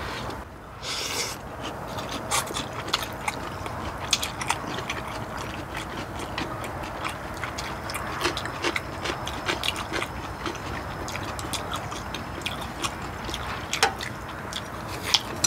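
Two people eating: chewing and slurping noodles, with frequent short clicks of chopsticks and spoons against the dishes and a brief hiss about a second in.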